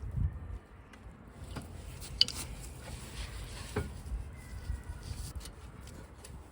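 Metal clinks and knocks of hand tools and brake parts being handled, with one sharp click about two seconds in and a dull thump at the start.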